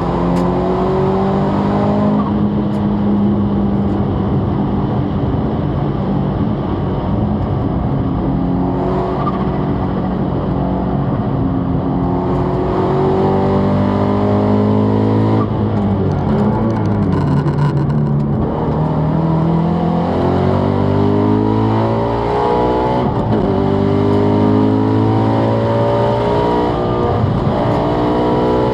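Subaru Impreza WRX STI spec C's turbocharged flat-four engine under hard acceleration around a race track, its pitch climbing through each gear and dropping back at every shift or lift, over and over.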